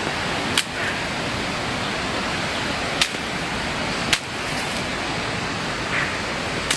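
Steady rushing noise of the rain-swollen river's fast-flowing water, broken by four short, sharp clicks or snaps.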